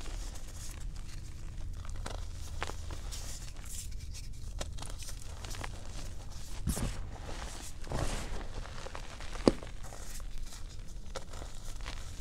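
Bare feet crushing and grinding gym chalk thins into chalk powder: irregular dry crunches and crumbling, with one sharp crack about nine and a half seconds in.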